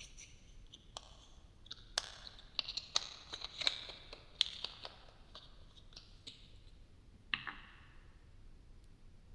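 Irregular close-up clicks and taps of hands handling small objects, a no-talking ASMR trigger, busiest in the middle and ending with one louder tap with a brief ring.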